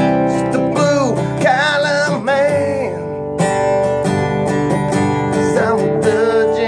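Acoustic guitar strummed in a steady rhythm, with a man's voice singing a drawn-out, wavering line from about one to three seconds in and briefly again near the end.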